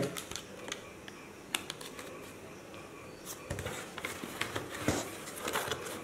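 Cardboard being handled: a few light knocks, scrapes and rustles as hands move the carton flaps and lift an inner cardboard box out of the shipping carton.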